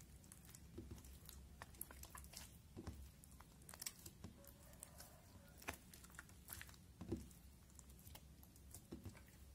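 Clear slime being kneaded and folded by hand, giving faint, irregular wet clicks and small pops, with a few soft squelching presses now and then.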